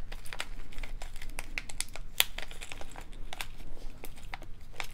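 Small clear plastic bag crinkling and crackling in the fingers as it is handled and opened, in an irregular run of sharp crackles.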